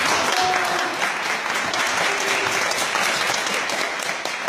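Many people applauding together, a steady dense clapping that runs through the whole moment.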